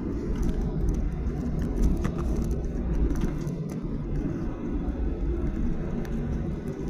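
Cabin noise inside a Boeing 737-800 airliner: a steady low rumble with a hiss above it and scattered light rattles and clicks from the cabin.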